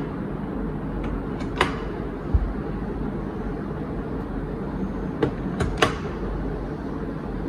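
Sharp taps of a handheld rubber stamp being pressed down on the desk: one about one and a half seconds in, a dull thump soon after, and three quick ones a little after five seconds, over a steady low hum.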